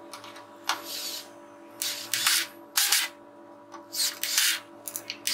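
Cordless drill driving screws into plywood in several short bursts.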